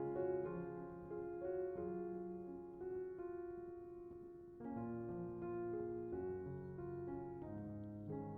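Soft, slow background piano music, single sustained notes over low bass notes.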